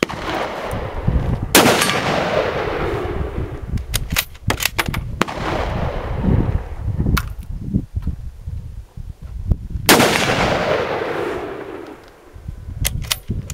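Two rifle shots from a .308 Ruger Gunsite Scout bolt-action rifle with a muzzle brake, about eight seconds apart, each followed by a long echo. Short sharp clicks come between the shots and near the end as the bolt is worked.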